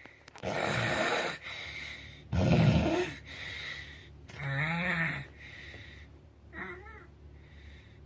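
A person snoring in sleep: four uneven snores about two seconds apart. Some are rough and noisy; others carry a wavering pitched tone. The second snore is the loudest.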